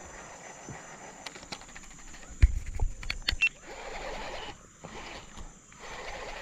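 A burst of sharp knocks and clatter on a plastic kayak, with dull thumps through the hull, about two and a half seconds in, then kayak paddle strokes swishing and dripping in the water.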